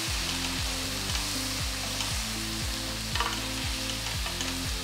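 Chopped tomatoes and onions sizzling in hot oil in a pan while being stirred, with a brief louder scrape about three seconds in.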